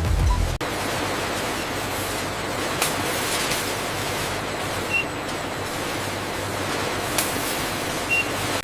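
Steady machine noise of a bottling production line, with a low thud at the start and a few short sharp clicks scattered through it.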